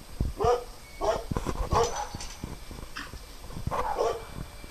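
Dog barking in short barks, four or so spread over the few seconds, with scattered light knocks between them.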